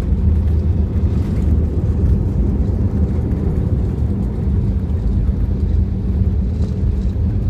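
Cabin noise of an Airbus A320-214 on its landing rollout: a loud, steady low rumble from the CFM56 engines with thrust reversers deployed and the wheels running on the runway.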